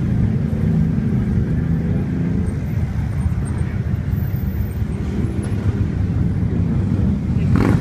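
Low, steady rumble of motor vehicle engines in slow street traffic, with a pitched engine drone over the first couple of seconds. A brief loud rushing sound comes near the end.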